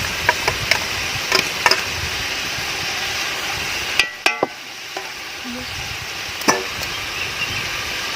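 Onion, tomato and ginger-garlic-chilli masala sizzling in hot oil while a spoon stirs it, clicking against the pan now and then. The sizzle drops lower about four seconds in.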